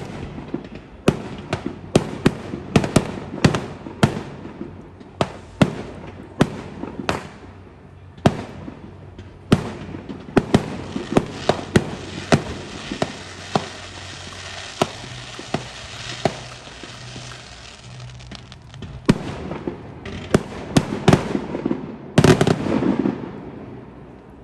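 Fireworks going off: a rapid, irregular series of sharp bangs from bursting shells, with a stretch of dense crackle and hiss in the middle and a cluster of the loudest bangs near the end.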